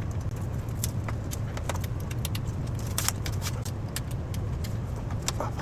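Light metallic clicks and taps of tools and small electrical fittings being handled, scattered irregularly over a steady low hum.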